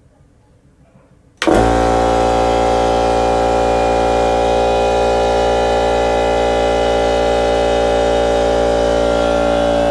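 Kobalt 8-gallon air compressor kicking on about a second and a half in, its motor and pump then running with a loud, steady hum.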